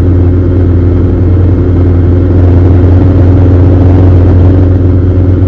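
2022 Maserati Levante Trofeo's twin-turbo V8 running loudly at a steady engine speed, an even low drone with no revving.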